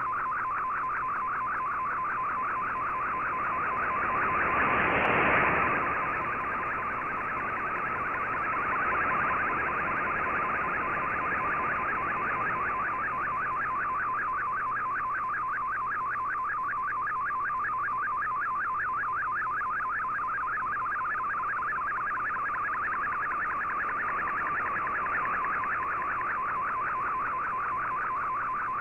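Shortwave radio receiving a picture transmission in a digital mode: a fast, regular warbling data tone heard through the receiver's audio. About five seconds in, a brief swell of static rises and falls over it.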